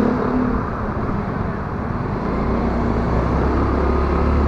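Motor scooter riding along a road: engine and wind noise in a steady rough rush, with a low hum that comes up about two seconds in.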